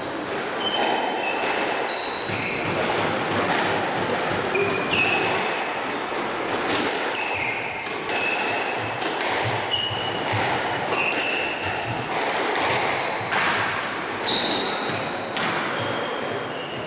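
A squash rally: repeated sharp knocks of the ball struck by rackets and hitting the walls and floor, with short high squeaks of court shoes on the wooden floor between the shots.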